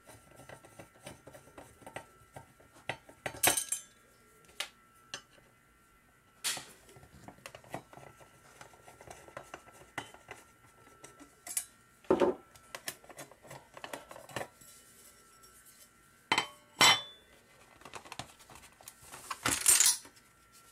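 Small metal clinks, clicks and taps from the metal weighing plate and its screws as the plate is unscrewed from a digital food scale's load cell and lifted off, with a few louder knocks spread through and a longer scraping handling noise near the end.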